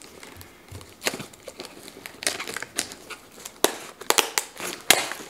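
Small cardboard box being opened by hand: flaps scraping and crinkling, with several sharp snaps of cardboard near the end.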